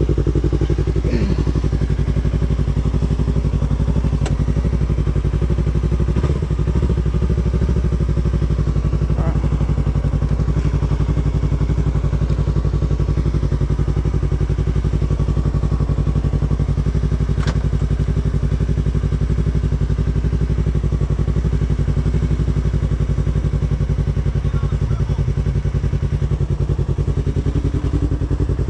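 2016 Yamaha R3's 321 cc parallel-twin engine idling steadily, with no revving, and a couple of faint clicks.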